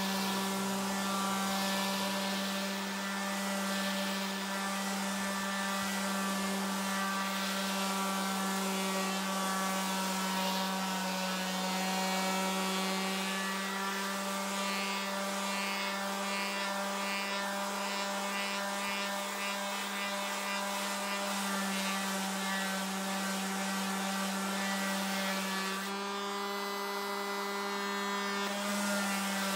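TOTAL TF1301826 320 W electric orbital finishing sander running steadily under load, a steady buzzing hum as its pad sands old paint off a wooden board. Its sound changes for a few seconds near the end.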